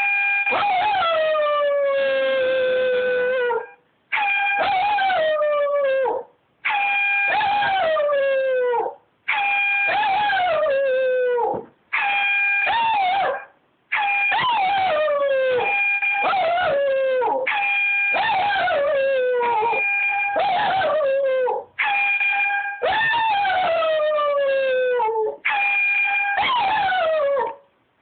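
A shih tzu howling along with an air horn app: a series of steady horn blasts, each two to four seconds long with short gaps between, and over each blast the dog's howl sliding down in pitch.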